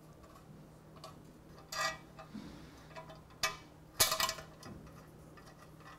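Small metal clinks and rattles of bolts against an aluminium skid plate and its mounting bracket as the plate is hand-fitted: a short rattle about two seconds in, a click a little later, and the loudest, a quick cluster of clinks, just after four seconds.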